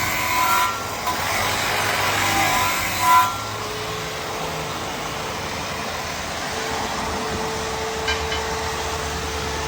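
Steady machine noise with a low steady hum, broken by a few short tones in the first three seconds.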